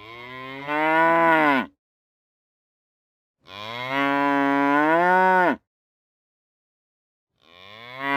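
Cow mooing: two long moos of about two seconds each, and a third beginning near the end, each rising and then falling in pitch.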